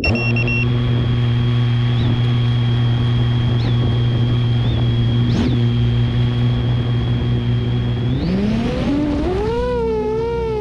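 A 7-inch FPV quadcopter's brushless motors and propellers spinning steadily at idle with a high whine. About eight seconds in, the pitch rises sharply as the throttle comes up for takeoff, then wavers.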